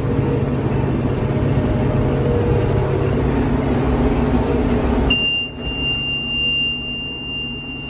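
Tym tractor engine and Vermeer 504L round baler running steadily. About five seconds in the machinery noise drops sharply and a steady high-pitched electronic beep sounds for about three seconds.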